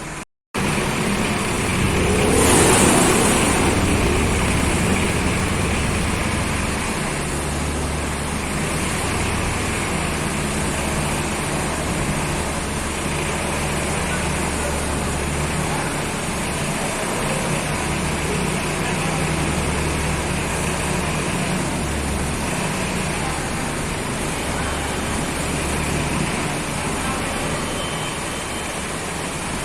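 Forklift engine running steadily, its low hum swelling and easing repeatedly, with a louder noisy surge about two seconds in.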